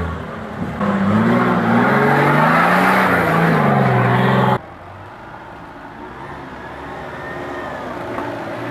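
Off-road Nissan Patrol's engine revving hard under load, its pitch rising and falling for about four seconds. A sudden cut about halfway through leaves a quieter off-road vehicle engine running at lower revs.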